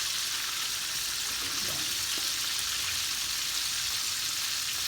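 Floured chicken drumsticks deep-frying in hot oil in a crowded wok, a steady, even sizzle with faint crackles.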